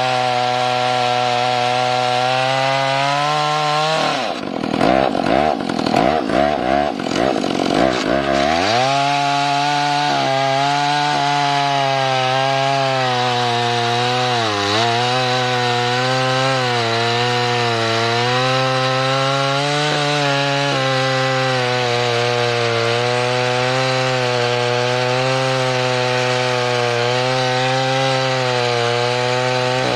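Vintage Husqvarna two-stroke chainsaw running at high speed while cutting through a large log. About four seconds in, the engine note wavers and breaks up for a few seconds. It settles back to a steady pitch, with a brief dip under load around the middle.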